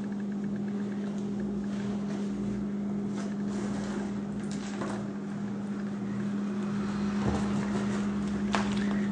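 A steady low hum with a few faint clicks and rustles.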